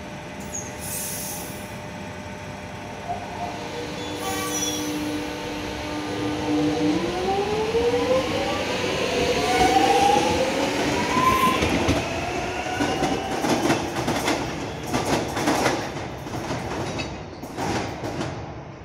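Alstom X'Trapolis 100 electric train pulling away from a station: a steady electrical hum with a couple of short hisses, then the traction motor whine rising in pitch from about seven seconds in as it accelerates. Near the end, wheels clatter over rail joints and points as the last carriages pass, and the sound falls away.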